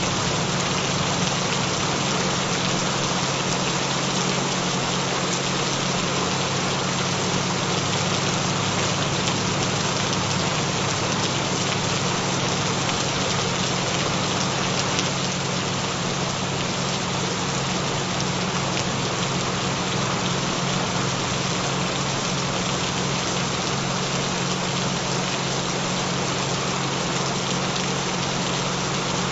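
Recorded gentle rain, an even steady hiss without change, layered with a steady low hum of added tones, the binaural-beat frequencies of the track.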